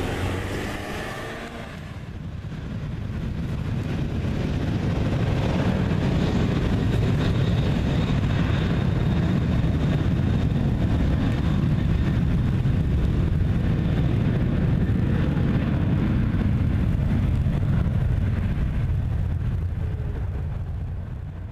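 Boeing 737-800's CFM56-7B turbofan engines at takeoff power during the takeoff roll: a loud, low jet rumble. It dips briefly about two seconds in, builds back and holds steady, then fades near the end as the aircraft moves away.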